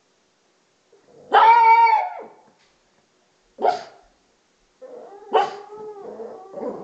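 A dog barking and whining: a long, loud, drawn-out bark about a second in, a short sharp bark near four seconds, then a softer wavering whine broken by another sharp bark.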